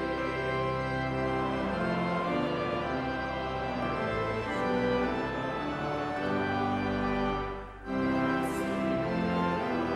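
Organ playing held chords that change every second or so, with a brief break just before the end of a phrase about eight seconds in.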